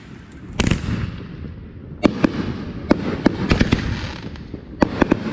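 Fireworks going off: a rapid series of sharp bangs and cracks, some in quick clusters, each trailing into a crackling rumble.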